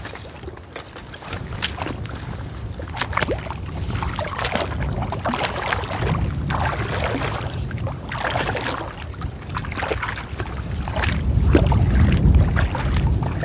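Small waves lapping and splashing in the shallows at a lake shore, in many short irregular splashes, over a low rumble of wind on the microphone that gusts strongest near the end.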